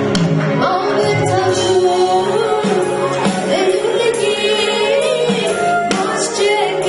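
Ethiopian Protestant gospel worship song (mezmur) performed live: a woman singing into a handheld microphone over a band with drums.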